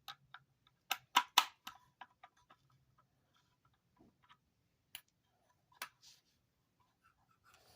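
Metal hand tools clicking and clinking as a socket is fitted onto a motor's fastener and worked. Three loud, sharp clicks come close together about a second in, then lighter, scattered clicks follow.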